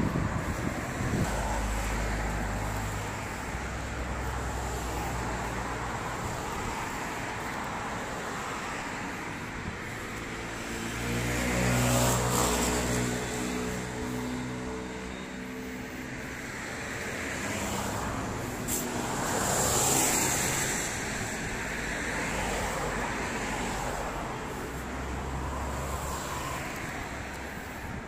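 Steady road traffic noise with vehicles passing, swelling and fading twice over a few seconds each time, mixed with wind rumbling on the phone's microphone.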